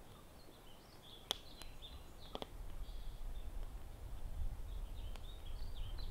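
Small birds chirping around a campfire, with a few sharp knocks as split wood pieces are laid on the fire, over a low rumble.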